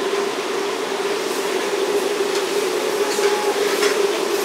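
Steady mechanical drone with a constant low hum from running kitchen equipment, with a few faint clicks.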